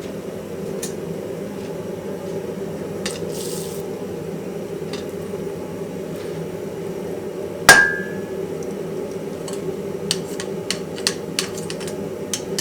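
A single sharp metallic clang a little past halfway through that rings briefly at one pitch, followed by a few lighter clicks and taps near the end, over a steady mechanical drone.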